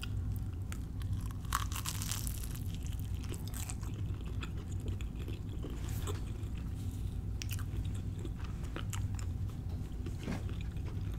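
Biting into and chewing a deep-fried empanada: crisp crunches of the fried pastry crust and chewing, with scattered crackles throughout and stronger crunches about two seconds in, around the middle and near the end.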